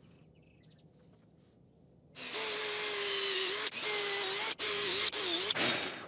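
Power drill boring pilot holes into a treated 6x6 wood post. It starts about two seconds in and runs in a few stretches with brief stops between them, its pitch sagging as the bit bites near the end.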